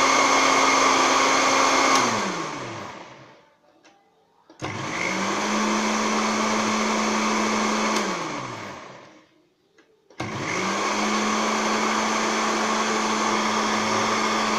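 Countertop electric blender motor whirring as it blends egg, lemon and oil into mayonnaise, run in pulses. It switches off about two seconds in and winds down with a falling hum, starts again at about four and a half seconds, stops and winds down near eight seconds, and starts once more about ten seconds in.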